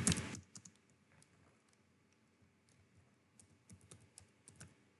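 Typing on a computer keyboard: a string of faint, uneven keystrokes, coming closer together in the second half.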